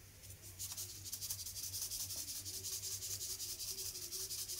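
Yogurt being whisked in a bowl: a fast, even run of scraping strokes, about ten a second, starting about half a second in.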